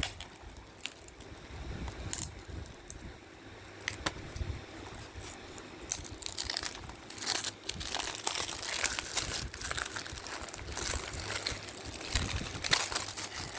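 Movie disc case and its paper insert being handled: crinkling and scattered clicks, getting busier about halfway through.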